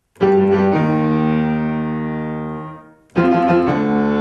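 Steinway grand piano: a chord is struck and held, ringing and slowly fading, then damped just before three seconds in. A second chord with a few quick notes follows and rings on.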